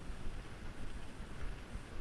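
Wind buffeting the camera's microphone: an unsteady low rumble that rises and falls in gusts.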